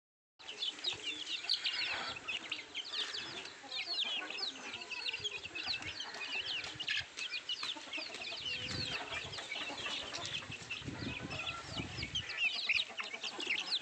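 A pen of young chicks peeping, many short high chirps overlapping without pause. There is some low rumbling about two-thirds of the way through.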